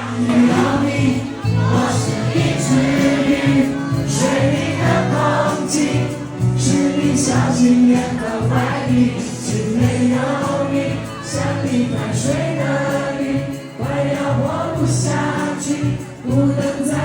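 Live pop song with a band, and a large crowd singing along in chorus.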